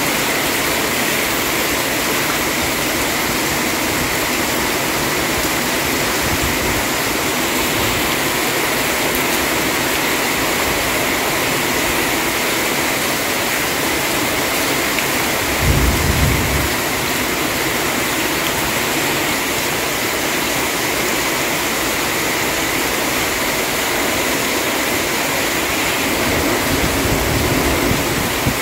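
Rain falling steadily in an even, loud hiss. A brief low rumble comes about halfway through, and another low rumble comes near the end.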